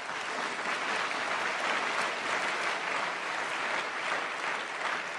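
Audience applauding: a steady round of clapping from a large crowd.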